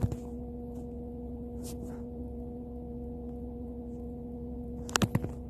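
2005 Toyota Vitz making a steady hum, one clear tone with a fainter tone an octave above it, over a low rumble. The hum is heard in drive and reverse but not in park, and its cause is unknown. A few sharp clicks come about five seconds in.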